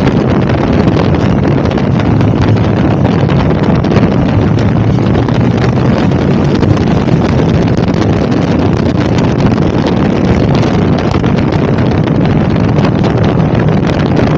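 Wind buffeting the microphone loudly over the steady running of a KTM 1290 Super Adventure's V-twin engine cruising at road speed.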